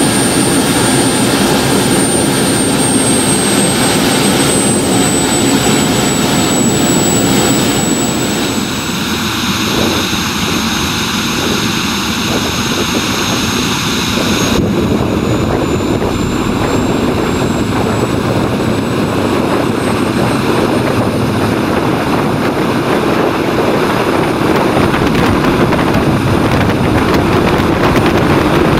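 Home-built model jet turbine with afterburner running: a loud, steady jet roar with a thin high-pitched turbine whine on top. The whine drifts slowly down in the first half. The sound changes abruptly about halfway through, and the whine climbs again about two-thirds of the way in as the turbine speeds up.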